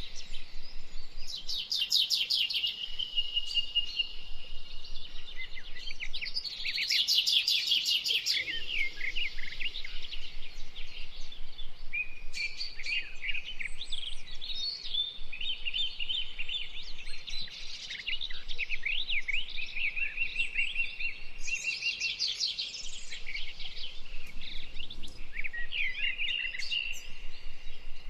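Small songbirds chirping and twittering without pause, high quick notes broken by fast buzzy trills a couple of times.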